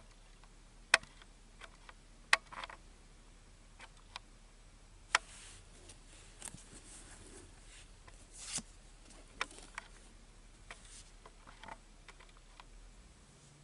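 Trading cards being handled on a table: scattered sharp clicks and taps, with a couple of brief swishes.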